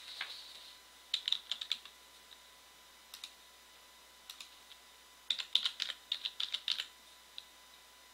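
Computer keyboard keys being typed: a quick run of keystrokes about a second in as a username is entered, a few single clicks, then a longer run about five seconds in as a password is entered.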